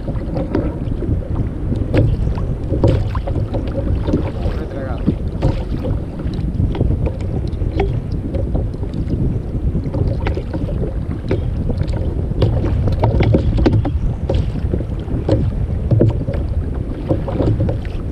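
Wind buffeting the action camera's microphone, a steady low rumble, with scattered small clicks and knocks of hands working on a fishing hook and line.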